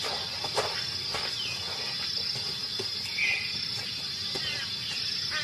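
Steady, high-pitched chorus of insects, with a few faint ticks and one short chirp a little over three seconds in.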